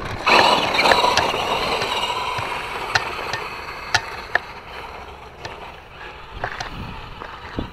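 Traxxas Slash electric RC short-course truck driving over dirt, its motor whine loud at first and then fading, with scattered sharp clicks of wheels and chassis over rough ground.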